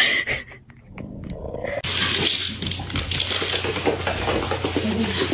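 Sounds of a pet animal, with a sudden loud sound at the start. About two seconds in, a busier, noisier stretch with a steady low hum takes over.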